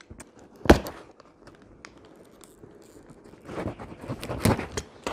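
Box cutter slicing through the packing-tape seal of a cardboard box: scraping, tearing and crinkling of tape and cardboard, loudest in the last second and a half. A single sharp knock about a second in.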